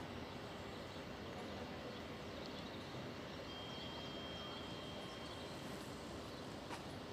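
Faint, steady outdoor background noise, with a thin, high, steady whistle lasting about two seconds midway.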